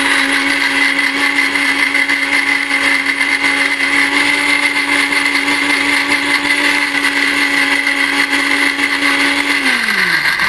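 Sujata mixer grinder running steadily at one pitch while it grinds a wet idli batter of soaked sabudana, samak rice, peanuts and curd. Near the end it is switched off and the pitch falls away as the motor winds down.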